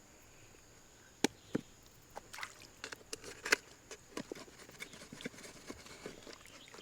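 A run of irregular sharp clicks and knocks, the loudest about a second in and again about three and a half seconds in.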